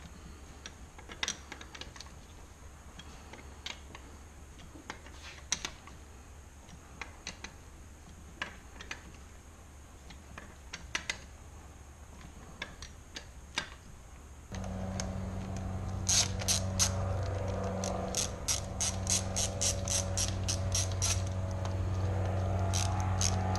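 Tools clinking now and then as they are handled. About midway a steady low hum starts, and then a ratchet wrench clicks rapidly on the cylinder head nuts of a Suzuki RM250 two-stroke top end as they are run down.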